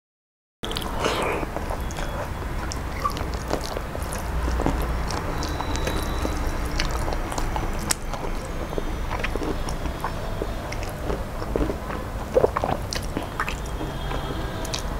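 Close-miked eating sounds: a woman chewing mouthfuls of shrimp pulao eaten by hand, with many small wet clicks and mouth sounds. The sound is absent for about the first half second, then runs on continuously.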